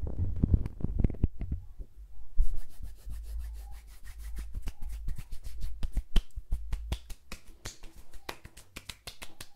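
Hands making close-miked ASMR sounds: first muffled handling thumps as fingers press the microphone capsules, then from about two seconds in a quick, dense run of crisp skin-on-skin rubs and clicks as palms and fingers rub together.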